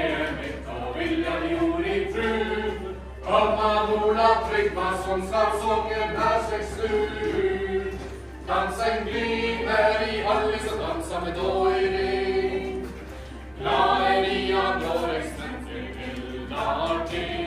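A group of voices singing a chant-like song together, in phrases of a few seconds with short breaks between them.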